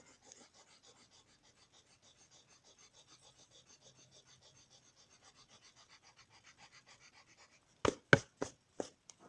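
Eraser rubbed lightly back and forth over pencil lines on paper, faint and rhythmic at about four strokes a second, lightening the lines without fully erasing them. Near the end come a few sharp, louder knocks.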